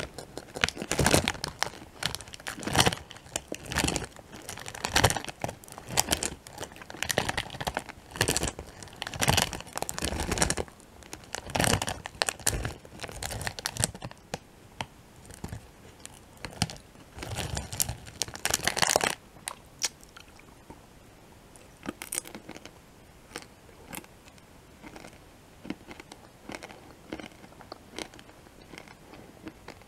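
Close-miked crunching and chewing of M&M's candy-coated chocolates, dense and loud for about the first two-thirds, then thinning to sparse, quieter mouth clicks near the end.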